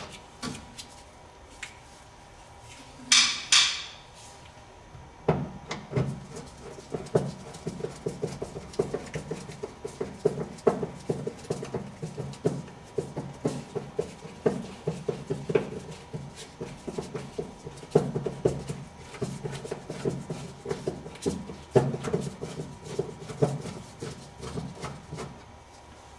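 A hand ratchet clicking in quick, irregular runs as it turns a socket on a long extension, working a rusted, drilled bolt loose. A short hiss comes about three seconds in.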